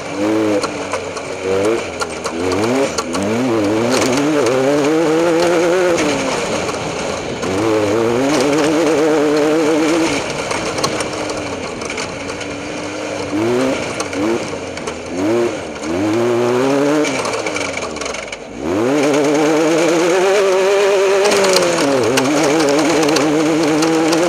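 Off-road race vehicle's engine under way, its pitch repeatedly rising and falling as the throttle is worked, over a constant rush of noise. About three-quarters of the way through the engine briefly drops almost to idle, then revs back up.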